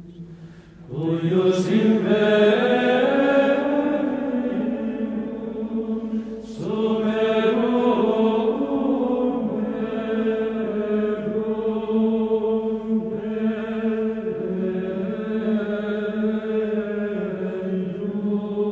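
Background music of chanting voices holding long, low sustained notes. It swells in about a second in and again after about six and a half seconds.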